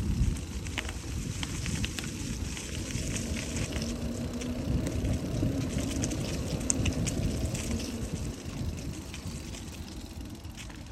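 Bicycle tyres rolling over a paved trail scattered with dry fallen leaves, with a low rumble, wind on the microphone and small crackles and clicks; it gets quieter near the end.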